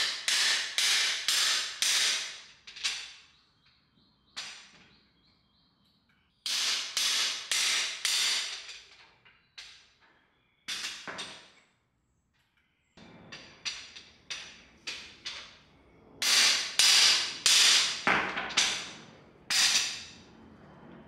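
Hammer blows on a camshaft bearing installation tool, driving a new cam bearing into an LS V8 engine block's cam bore. The strikes are sharp and ringing, about two to three a second, in four runs with short pauses between them.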